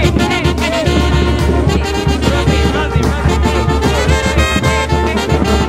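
Mexican banda music: trumpets and trombones playing over a strong, steady low bass line.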